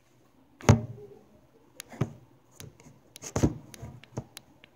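Handling noise from a handheld recording device: scattered knocks and rubs of fingers and hands against it. The loudest knock comes under a second in, followed by a few softer ones.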